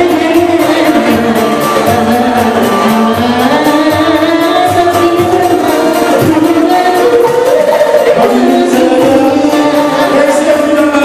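Live Sundanese pop song: singing over band accompaniment with a quick, steady beat.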